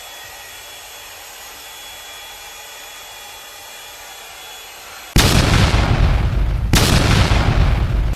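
Faint hiss, then about five seconds in a sudden loud rushing noise with a deep rumble that cuts off and comes back about a second and a half later.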